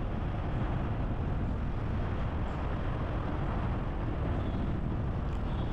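Steady road noise of a car driving along an open road: an even rush of tyres and engine with no distinct events.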